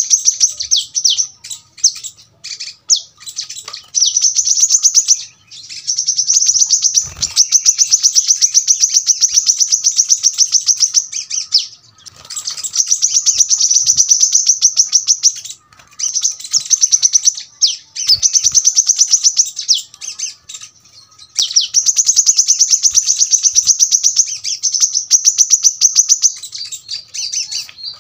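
Brown-throated sunbird (kolibri kelapa) singing long runs of rapid, sharp, high-pitched notes. Each run lasts a few seconds and is broken by short pauses.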